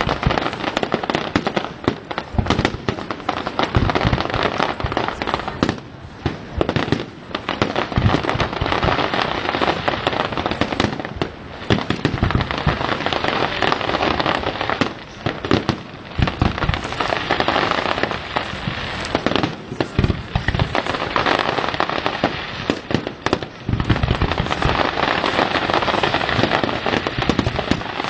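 Fireworks display: a continuous barrage of overlapping bangs and crackling, with brief lulls between volleys.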